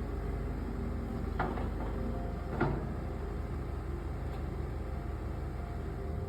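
Excavator's diesel engine running steadily, with two sharp metal clunks about a second apart, the second louder.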